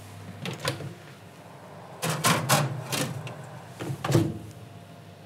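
A metal grill tray clattering and scraping as it is slid onto the shelf under an oven grill, a run of sharp clicks and knocks, then the oven door shut with a clunk just after four seconds in.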